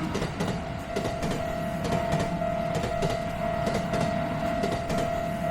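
A train running along the track, its wheels clicking irregularly over the rail joints above a low rumble, with a steady high tone held throughout.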